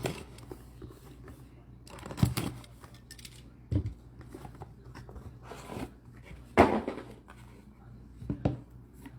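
Trading-card box packaging being handled and opened: about six separate short rustles, tears and light knocks with pauses between.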